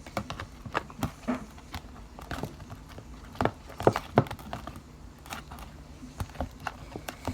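Slime being stirred by hand in a container: irregular sticky clicks and knocks, with a few louder knocks around the middle.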